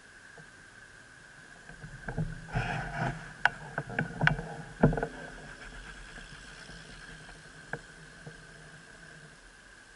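A cluster of sharp clicks and knocks over about three seconds, with a single tick a little later, from a stopped bicycle and its handlebar-mounted camera being shifted. A faint steady high whine runs beneath.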